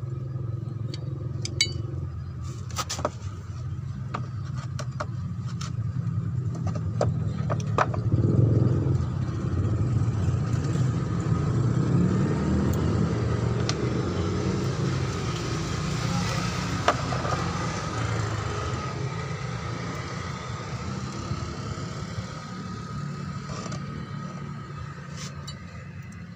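Low rumble of a motor vehicle engine running, swelling about a third of the way in and easing off toward the end. A few light metallic clicks come from handling the clutch release bearing and its retaining clip.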